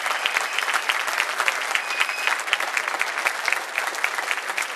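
Audience applauding: many people clapping hands, dense and steady.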